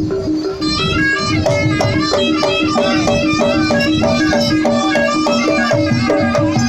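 East Javanese jaranan music from a gamelan-style ensemble: a reedy shawm-like melody over a steady pulse of repeated pitched notes and drums, with the full ensemble filling in about half a second in.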